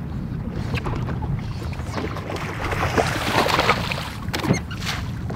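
A hooked bass thrashing and splashing at the surface beside the boat, loudest around three to four seconds in, over a steady low rumble of wind and water against the boat.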